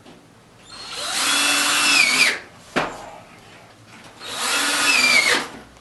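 Power drill driving sheet-metal screws into a smoke pipe joint: two runs of about a second and a half each, the motor whine dropping in pitch as each screw seats. There is a sharp click between them.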